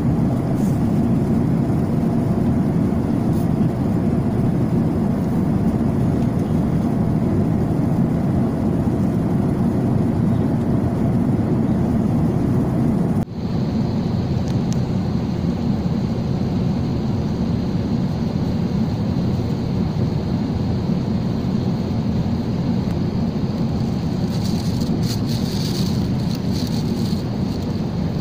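Steady cabin noise inside an Airbus A380-800 in its climb: engine and airflow noise, strongest low down. It briefly drops about 13 seconds in, after which a faint high steady whine is added, and a few faint clicks come near the end.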